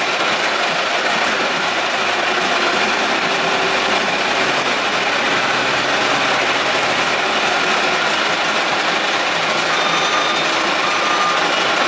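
Steady, loud whir of a running motor, even throughout.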